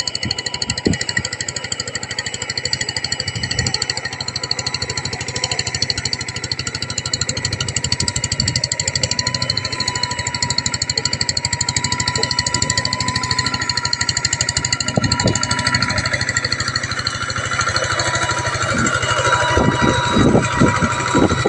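Single-cylinder diesel engine of a two-wheel hand tractor running under load while plowing a flooded rice paddy, with a fast, even chugging beat. It grows louder in the last few seconds as the tractor comes close.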